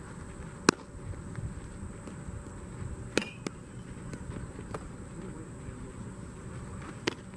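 Baseball smacking into a leather glove during a game of catch: a sharp pop about a second in, a fainter catch around three seconds, and another sharp pop near the end.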